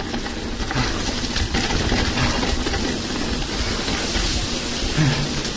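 Mountain bike ridden downhill on a trail: a steady rush of wind and tyre noise with continual rattling and clatter from the bike.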